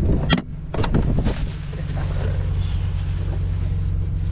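Metal kitchen utensils, a knife and tongs, clattering as they are pulled from a wooden drawer: a few sharp clicks in the first second or so, over a steady low rumble.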